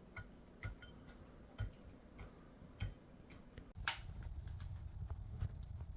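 Footsteps crunching in cold, packed snow, roughly two steps a second. About two-thirds of the way through, a louder steady low rumble sets in abruptly.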